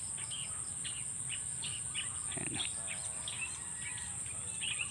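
Outdoor field ambience: a steady high-pitched insect drone with short bird chirps scattered over it.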